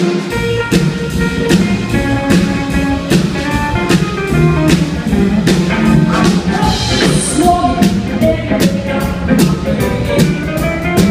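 Live band kicking in all at once: hollow-body electric guitar, upright double bass and drum kit playing a blues number with a steady drum beat.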